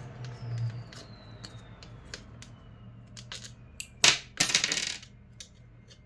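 Small loose metal parts from a disassembled fan clicking and clattering on a tabletop, with a thin ringing that slides slowly down in pitch like a spinning or rolling piece. There is a louder clatter and rattle about four seconds in.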